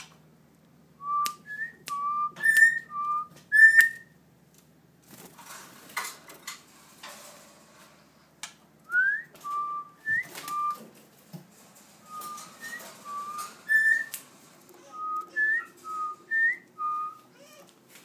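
A person whistling short, pure notes, mostly alternating between a lower and a higher pitch, with now and then a quick rising slide. There is a stretch of soft rustling in the middle.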